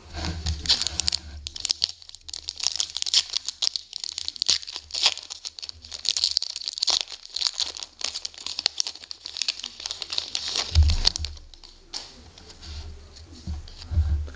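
Foil wrapper of an SPx hockey card pack crinkling and tearing as it is opened by hand, a dense run of crackles lasting about ten seconds. A few soft low bumps follow near the end as the cards are handled.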